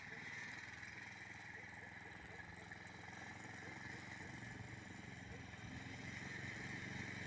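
Small tracked motor pusher (Uragan Taiga snow tug) with its engine running as it drives over snow. The steady engine hum grows slowly louder as it approaches.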